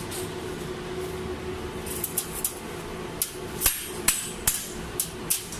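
A series of about nine sharp metallic taps or knocks, irregularly spaced, starting about two seconds in, over a faint steady hum.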